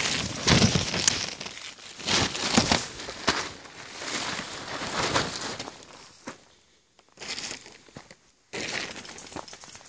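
Plastic tarp rustling and crinkling as it is brushed aside, louder over the first few seconds, then fainter, broken-up footsteps on dry leaf litter.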